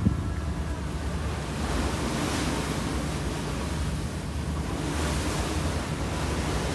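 Wind blowing across the microphone over the steady rush of sea water past a moving ferry, swelling a little twice.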